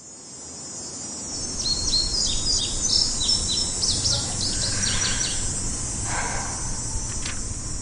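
Nature ambience: a steady chorus of crickets and other insects, fading in at the start, with birds chirping in quick short calls from about two to five seconds in.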